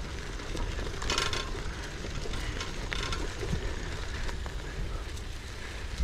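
Trek FX2 hybrid bike riding over a rough dirt trail: tyres crackling over the ground under a low rumble. The freewheel ticks briefly about a second in and again around three seconds in.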